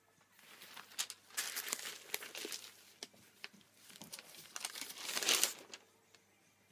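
Newspaper pages rustling and crinkling as a tabloid is handled, unfolded and opened out, with sharp crackles of paper in two louder stretches; the loudest comes shortly before the rustling stops near the end.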